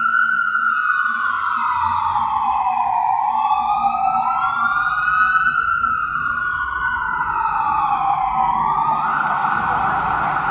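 Fire engine siren wailing in slow rises and falls of about four seconds each, changing to a fast warble near the end.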